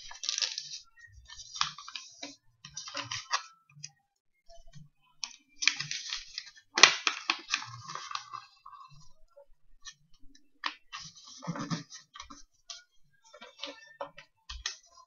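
A sheet of A4 paper being folded and creased by hand: irregular rustles and crinkles, the loudest about seven seconds in, with soft knocks of fingers pressing the paper flat on a wooden tabletop.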